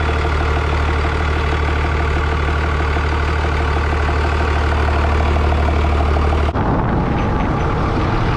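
The diesel engine of a home-built, short-wheelbase Western Star truck runs steadily with a deep, even hum as the truck drives along, heard from outside the cab window. About six and a half seconds in, the sound changes abruptly to a rougher, noisier rush without the steady hum.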